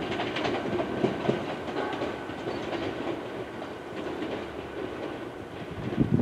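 A train running past, its wheels clacking over rail joints in a steady rhythm, easing off slightly toward the end.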